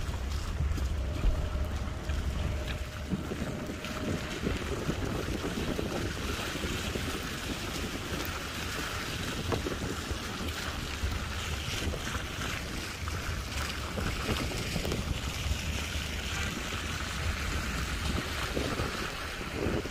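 Wind buffeting the microphone as a steady low rumble, under an even hiss of monsoon rain on wet roads.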